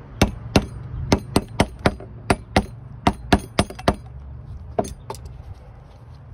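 Hammer tapping a thin metal punch driven into the bore of a first-gen Scion tC clutch master cylinder, knocking the old rubber seal and piston out. The blows are sharp metallic clinks with a slight ring, about three a second, a dozen in a row, then a short pause and two more.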